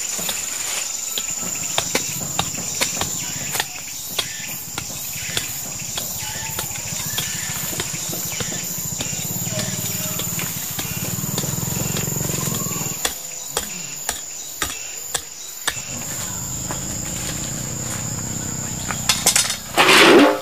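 Insects trilling steadily at one high pitch, with scattered short clicks, knocks and rustling over it; a few louder knocks near the end.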